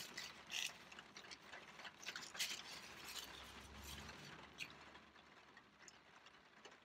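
Light rain on a car, heard from inside the cabin as faint, scattered ticks of drops.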